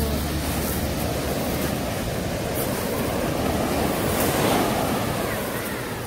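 Ocean surf washing onto the beach, a wave swelling in about four seconds in and then easing off.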